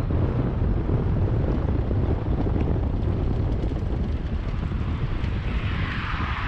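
Wind rushing over the microphone and a steady low road rumble as a small-wheeled trailer is towed fast over asphalt. Near the end a hiss of water spray builds as its wheels run into standing floodwater.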